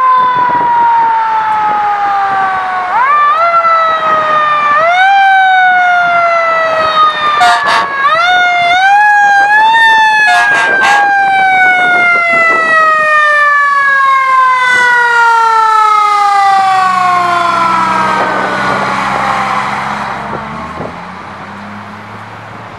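Fire rescue truck's mechanical Q siren, spun up again and again into a rising wail and then winding down in a long slow fall in pitch. Two short sharp blasts cut in about seven and eleven seconds in, and a truck engine's low rumble comes in under the fading siren near the end.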